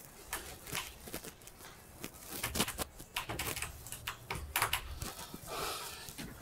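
A string of irregular light clicks and knocks, several close together about two and a half seconds in, with a short rustle near the end.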